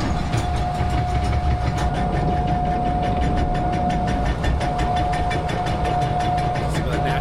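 Amusement-ride conveyor-belt lift running as the ride boat is carried up: rapid, regular clacking over a steady whine and a low rumble.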